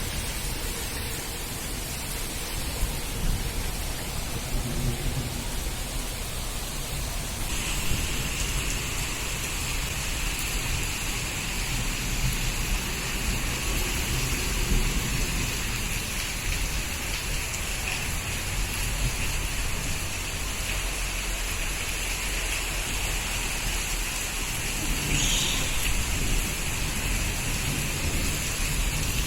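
Moderate monsoon rain falling steadily, with a low rumble underneath. A steady high-pitched drone joins about seven seconds in.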